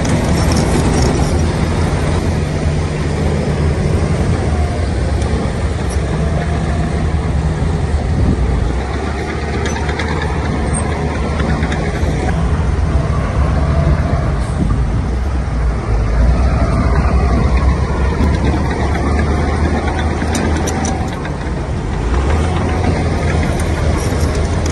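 Heavy diesel engines of dump trucks running steadily with a low drone while the trucks tip their beds to unload soil.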